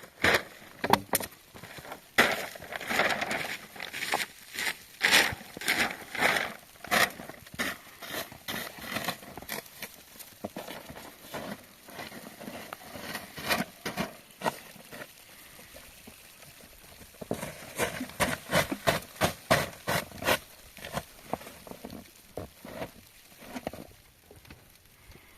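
Footsteps: a long run of steady steps, about two a second, pausing briefly about two-thirds of the way through before going on.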